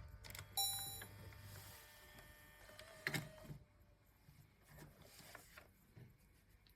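Sony DCR-TRV239 Digital8 camcorder being operated: a short electronic beep about half a second in, then button and mechanism clicks, with a sharp click about three seconds in and fainter clicks after it.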